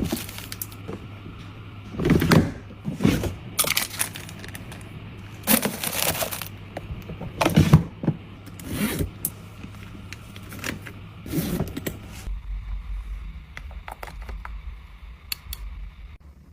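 Items being handled and set down: a run of separate knocks, clicks and rustles, spaced a second or two apart, with the background changing abruptly about three quarters of the way through.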